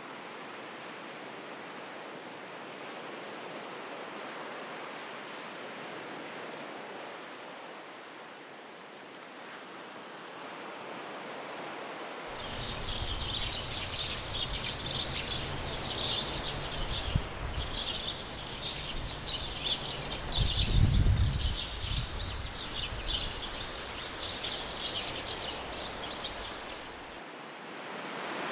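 A soft, steady wash of noise. About twelve seconds in, busy high twittering of small birds joins it over a low wind rumble, and both stop shortly before the end.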